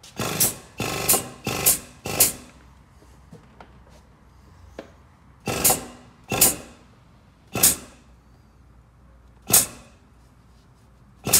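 Hydraulic frame-machine puller being worked in short strokes, about ten brief noisy bursts, four in quick succession at the start and then spaced a second or two apart, as the chain draws a clamped pull plate on a car sill outward.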